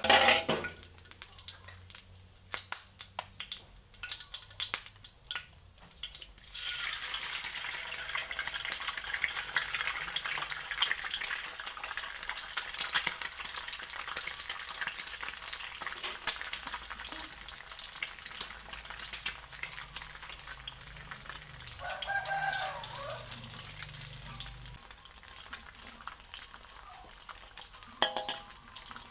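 Chicken eggs frying in hot oil and garlic in a steel wok: a knock and a few clicks of the eggs being cracked, then a steady sizzle that starts about six seconds in and keeps on. A rooster crows once in the background about two-thirds of the way through.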